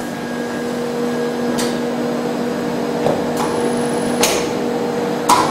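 Chocolate tempering machine running with a steady hum while chocolate pours from its spout, with a few sharp knocks and clicks spread through, the loudest near the end.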